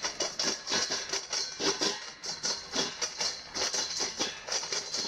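A dog eating dry kibble from a stainless steel bowl: quick, irregular crunching and kibble rattling against the metal, several clicks a second.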